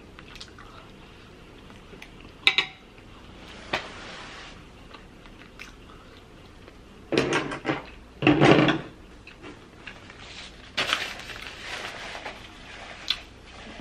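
Close-up eating sounds: a few sharp clinks of a metal fork against a plate, then louder bursts of chewing and mouth noise from eating rice and chicken about seven to nine seconds in, with lighter scattered eating noises after.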